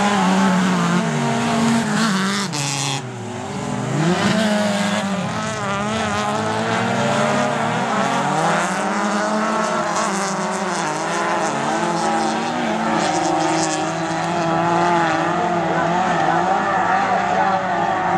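Several small autocross cars racing on a dirt track, their engines revving hard and lifting off through the corners. The engine pitch drops about three seconds in, then climbs and wavers as they accelerate again.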